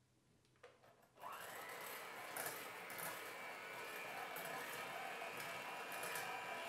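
Electric hand mixer switching on about a second in and running steadily, its twin wire beaters whisking egg yolks and sugar in a stainless steel bowl. Before it starts there is a light knock, and the beaters give off light ticks as they run.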